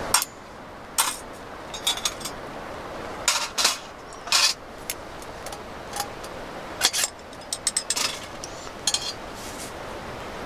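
Metal tongs clinking and tapping against a canned solid-fuel burner, its steel tray and a kettle: a scattering of sharp metallic clicks and clinks, a dozen or so, over a steady background hiss.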